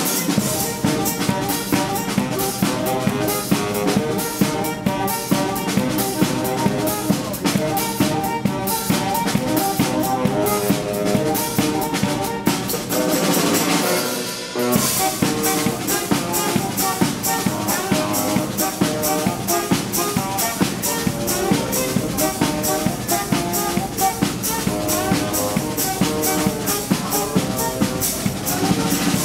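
Live saxophones and drum kit playing a driving dance groove: repeated honking sax riffs over a steady kick-and-snare beat. About halfway through, the sound swells upward and then cuts off abruptly before the beat comes back in.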